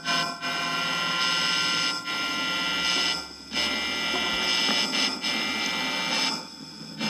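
Dense electronic drone noise: a hiss with many steady tones held across it, dipping out briefly about halfway and again near the end.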